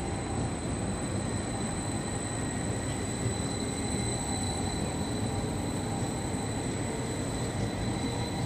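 Edinburgh tram, a CAF Urbos 3 articulated tram, passing close by at low speed on curved street track: a steady running noise of steel wheels on rail.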